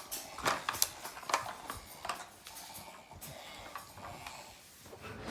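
Small toy trucks being handled and moved: irregular light clicks, knocks and rattles.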